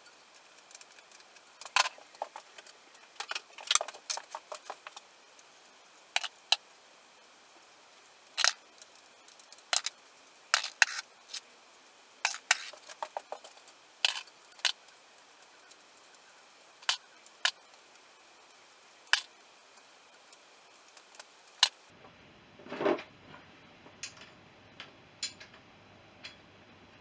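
Irregular sharp metallic clicks and clinks of hand tools and loose parts being handled while stripping down a motorcycle, with a short louder scrape about 23 seconds in.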